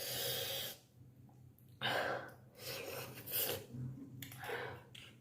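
Noisy mouth sounds of a person eating hot, spicy noodle soup: about six short hissing breaths drawn through the mouth, the first the loudest, the sign of chilli heat.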